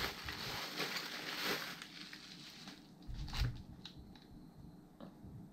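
Plastic bubble-wrap packaging crinkling and crackling as a metal bike-seat mounting bracket is pulled out of it. About three seconds in there is a dull knock as the metal part meets the desk, followed by a few light clicks.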